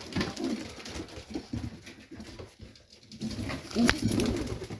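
Domestic pigeons cooing in a loft, a call near the start and another late on, with a sharp click about four seconds in.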